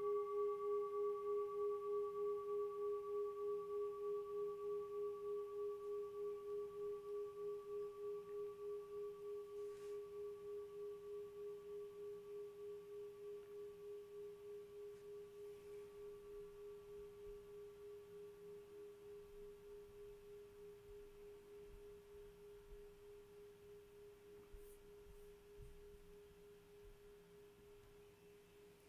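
A singing bowl ringing on after being played: one deep steady hum with fainter higher overtones, wavering in a slow regular beat as it slowly dies away.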